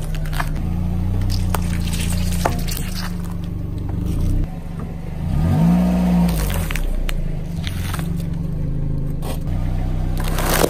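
A car engine runs steadily under the tyre crunching and scraping over grit on asphalt as the wheel crushes packaged items, with scattered sharp cracks and crackles. The engine pitch rises and falls back about halfway through.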